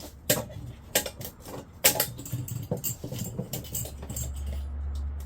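Loose metal parts clinking and knocking as they are handled and set down, with several sharp knocks in the first two seconds. A steady low hum comes in about three and a half seconds in.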